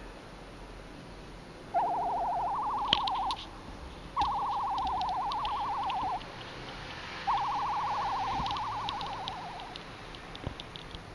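Three trilled, warbling calls like an owl's, each about two seconds long and separated by short pauses; the first steps up in pitch partway through. Faint ticking runs higher above them.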